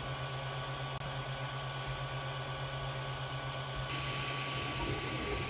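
Creality Ender 3 V2 3D printer running: a steady whir of its cooling fans with a low hum and a thin, steady whine, turning brighter and hissier about four seconds in.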